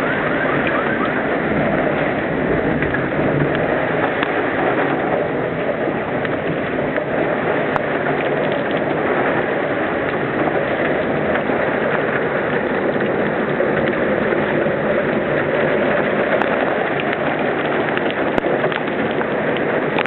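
Thunderstorm rain falling steadily, an even hiss of drops.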